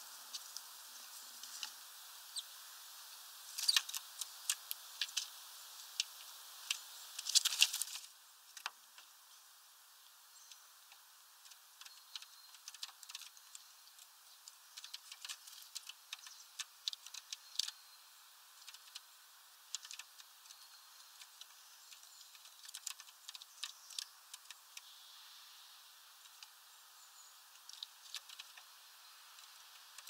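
Irregular sharp clicks and taps of greenfinches pecking at peanuts through a mesh feeder, with a quick, louder flurry about seven to eight seconds in.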